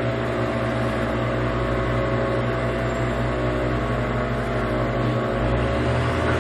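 Large engine running steadily, with a slight change in its low note about five seconds in.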